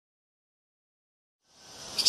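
Silence for about a second and a half, then a steady background hiss fading in near the end.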